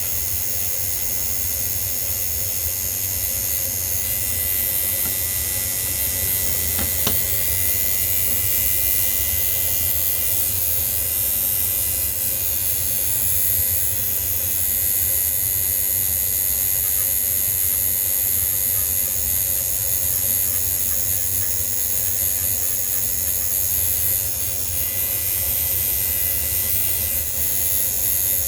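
Steady mechanical hiss with a faint high whine and a low hum underneath.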